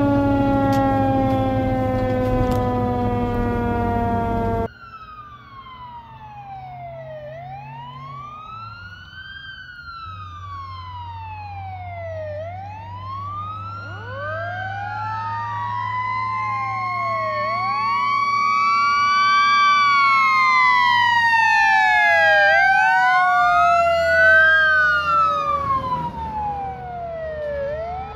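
Sirens of a 1968 Seagrave FWD fire truck over its engine. Heard first from inside the cab, one siren winds slowly down in pitch. After a sudden cut about five seconds in, the truck approaches from a distance with its sirens sweeping up and down in overlapping wails. They grow louder as it nears, then drop in pitch (Doppler effect) as it passes near the end.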